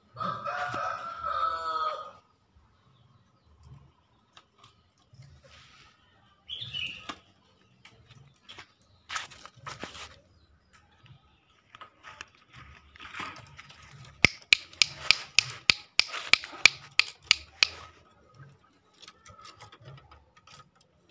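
A green junglefowl rooster gives a short, hoarse two-second crow near the start. Later comes a run of sharp clattering clicks, about three a second for some four seconds, which is the loudest sound here.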